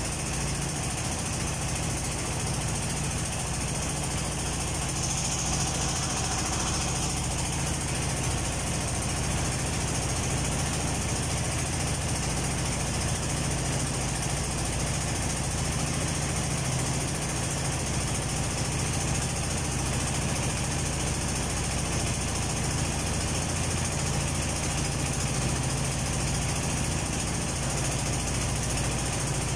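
A motorboat's engine running steadily at a constant pitch and level, with a strong low hum.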